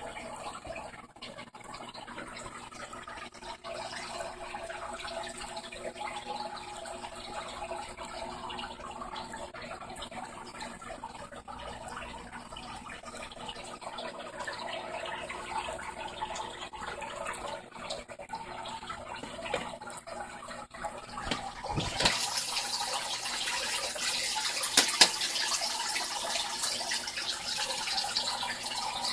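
Aquarium water running and trickling steadily, as from the tank's filter return. About three-quarters of the way through it becomes louder and hissier, with a couple of sharp clicks shortly after.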